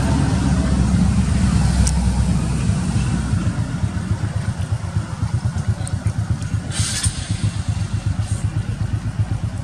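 Motorcycle engine idling with a low, rapid pulsing, and a brief hiss about seven seconds in.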